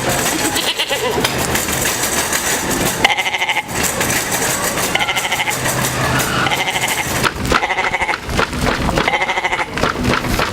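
Goat bleats: about five short quavering calls, each under a second, coming a second or two apart over steady background noise.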